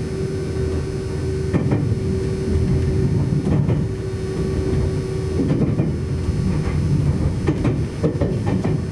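Nagano Electric Railway 1000 series 'Yukemuri' limited express train running, heard inside the carriage: a constant low rumble with a steady hum that fades out a little past halfway. Irregular clacks of the wheels over rail joints come through it, several in quick succession near the end.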